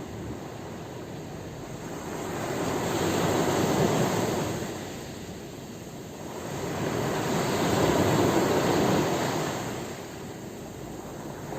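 Sea waves washing in: two slow swells of rushing surf noise, each building over a couple of seconds and fading. The first peaks about four seconds in, the second about eight.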